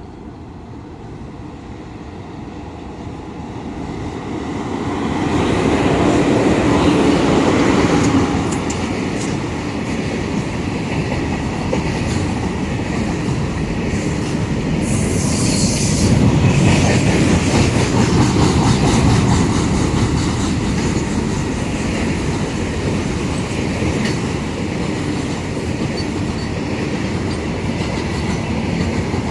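Indian Railways passenger train approaching and running past close by: it grows louder over the first five or six seconds, then the wheels clatter steadily over the rail joints. There is a short high hiss about fifteen seconds in.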